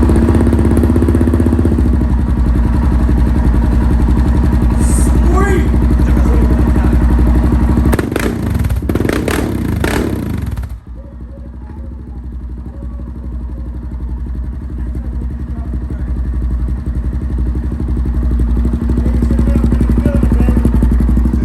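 Suzuki KingQuad 750 ATV's single-cylinder four-stroke engine running loud through a newly fitted HMF slip-on exhaust. It is blipped hard a few times about eight seconds in, then drops back to a quieter idle.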